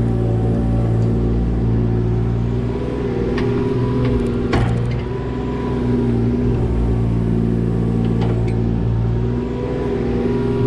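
Kubota KX018 mini excavator's three-cylinder diesel running steadily, dipping slightly under hydraulic load now and then, with a few sharp metallic clanks from the machine working.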